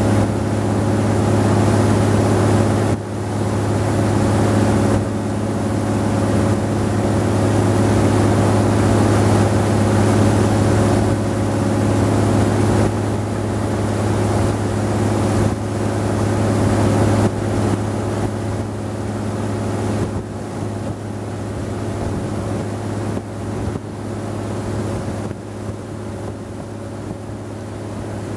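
Wooden river tour boat's engine running at cruising speed: a noisy, steady low drone that eases off slightly over the second half.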